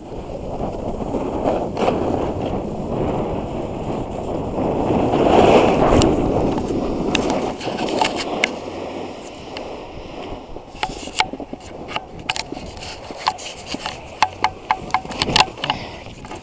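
Snowboard sliding and scraping over packed snow, heard close up from a body-mounted action camera, loudest about halfway through. After about ten seconds the ride stops and a run of sharp clicks and knocks follows.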